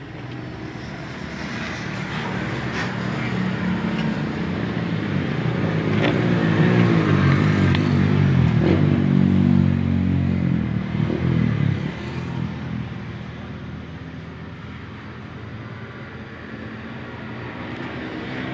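A motor vehicle's engine close by, getting steadily louder, peaking with its pitch bending up and down, then dropping away quickly about twelve seconds in and fading to a low rumble, like a vehicle driving past.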